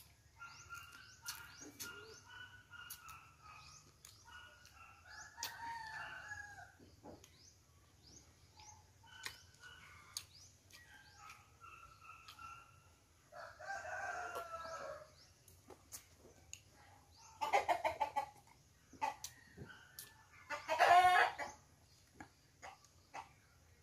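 Rooster crowing, three calls in the second half with the last one the loudest, among scattered bird chirps.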